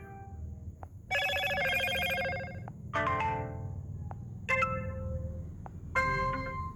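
Motorola Moto C's built-in phone tones playing through its speaker: four short electronic chimes, the first about a second in and the rest about a second and a half apart, over a steady low hum.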